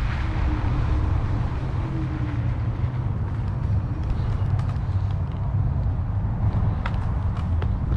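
Wind buffeting the microphone of a moving rider: a steady low rumble, with a few faint ticks over it.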